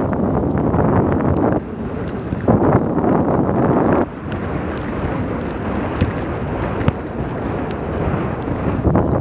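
Wind buffeting the microphone while moving along a paved road, a dense rumble that rises and drops in gusts, with a few scattered clicks and rattles.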